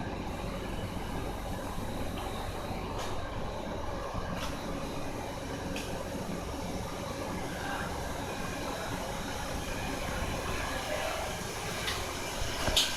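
Steady industrial machine din of a biomass sawdust burner and boiler running, an even rumble with hiss. A few sharp clicks sound through it, with a louder knock near the end.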